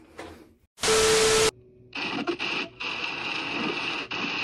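Static-like noise: a loud burst of hiss lasting about half a second, about a second in, then a steady hiss from about two seconds in, while a phone video call is being placed.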